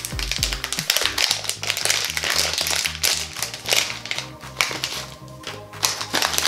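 Foil blind-bag wrapper crinkling and tearing as it is pulled open, many quick sharp crackles, over background music with a steady bass beat.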